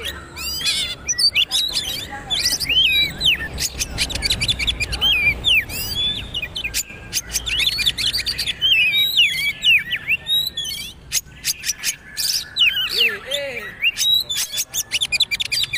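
Oriental magpie-robin (kacer) singing a rapid, continuous trotol-style song of quick chirps, whistled pitch glides and sharp clicking notes.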